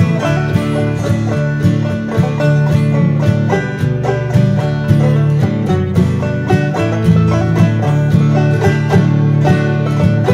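Background music: upbeat bluegrass-style tune with fast banjo picking.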